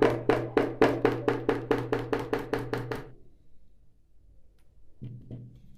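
Electric food chopper chopping onions: its motor runs steadily with a regular knocking about four times a second, then it is switched off about three seconds in.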